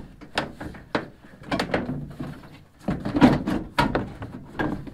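Plastic wheel-well liner of a 2015 Ram 2500 being bent and pulled out of the wheel arch, with irregular scraping, crinkling and knocks as it flexes and rubs against the arch and tyre.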